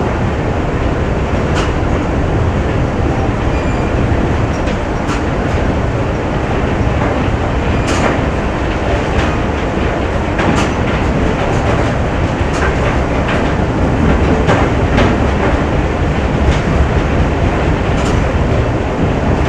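Factory machinery ambience: a dense, steady mechanical rumble and clatter, with sharp metallic clanks at irregular intervals of a second or more.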